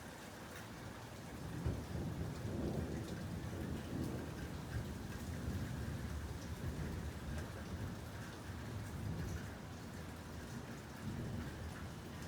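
Thunder rumbling over steady rain. A low, rolling rumble swells about a second and a half in, goes on for several seconds and slowly eases, while rain keeps falling with scattered drop ticks.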